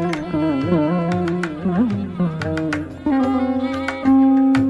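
Indian classical-style background music: a wavering, ornamented melody over held notes, with tabla strokes.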